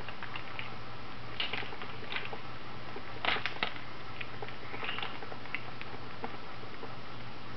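Boiled crawfish shells crackling and snapping as they are twisted and peeled by hand, in scattered small clicks with the loudest cluster about three seconds in. A steady low hum runs underneath.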